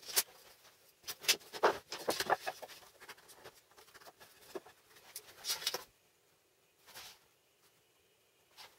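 Handling of a homemade MDF table saw sled: a run of clicks, knocks and short scrapes as its pivoting angle arms are moved and set, then after about six seconds only a couple of faint light scratches as a pen marks the board.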